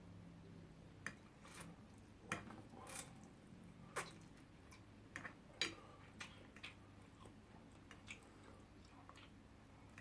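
Faint eating sounds: a dozen or so scattered soft clicks and smacks of chewing spaghetti, with quiet room tone between them.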